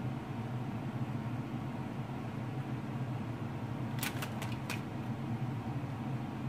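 Steady low machine hum throughout, with a quick run of four light clicks about four seconds in.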